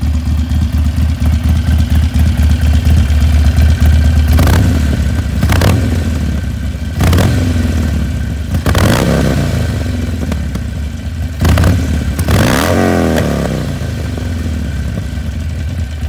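2016 Harley-Davidson Roadster's 1200 cc V-twin idling through a Danmoto Highwayman 2-into-1 exhaust. From about four seconds in it is revved in about six short throttle blips, the pitch rising and falling with each.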